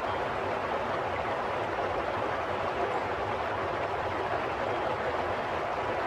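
Flowing water rushing steadily, an even noise with no breaks or separate splashes.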